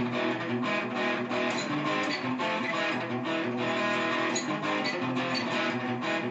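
Guitar music: plucked and strummed guitar chords with regular strokes and notes ringing on, running without a break.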